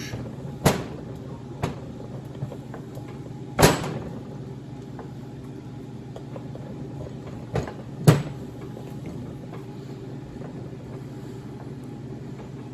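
Scattered sharp metal clicks and knocks, about five, from a screwdriver and hands working the cast-aluminium crankcase halves of a two-stroke snowmobile engine as they are pried apart; the loudest knock is about three and a half seconds in, with a close pair near eight seconds. A steady low hum runs underneath.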